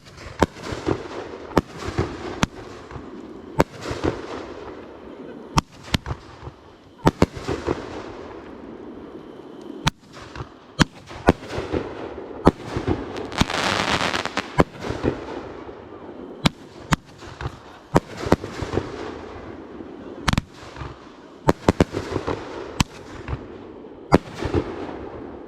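Fireworks going off in quick succession: sharp bangs about one to two a second, each followed by a fading crackle. About halfway through comes a longer, denser burst of crackling hiss.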